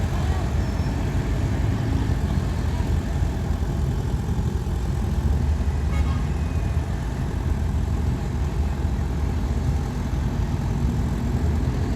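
Heavy diesel earthmoving machinery running steadily: a low, even engine rumble.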